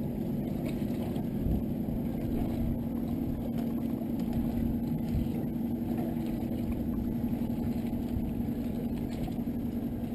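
Steady low engine hum with an even noisy wash, unchanging throughout.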